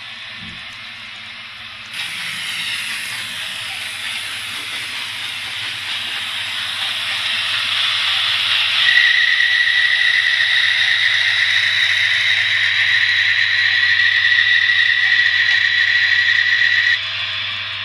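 Sound decoder of a Trix Ce 6/8 II 'Crocodile' model locomotive playing through its small loudspeaker: a loud hiss switches on abruptly and grows louder. A steady high whistle-like tone joins about halfway through, and both cut off abruptly near the end.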